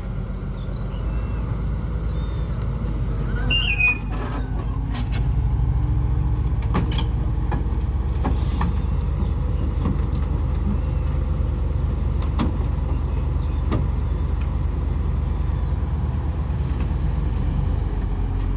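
Diesel engine of a Cat 320 excavator running steadily, working harder from about four seconds in, with occasional sharp metal clanks, the loudest about four seconds in.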